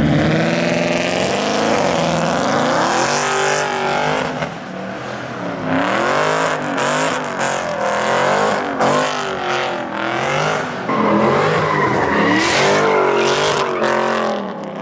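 A car engine revving hard, its pitch climbing and falling again and again, while the car slides with its tyres spinning and squealing.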